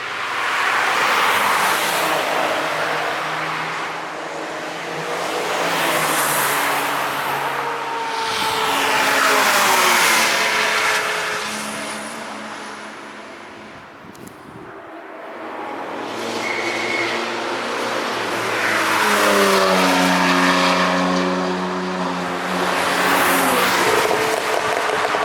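A string of cars driving past one after another on the Nürburgring Nordschleife, engines under load, each swelling up and fading away with falling pitch as it goes by, about five or six passes in all. The later ones rise in pitch as they accelerate.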